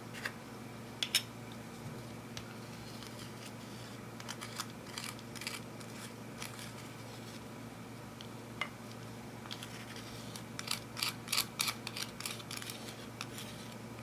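Irregular sharp clicks and crackles from handling eyeshadow and clear slime, with a pair about a second in and a quick cluster near the end, over a steady low hum.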